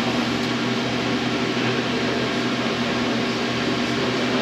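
A steady machine hum with a constant rushing noise, unchanging throughout.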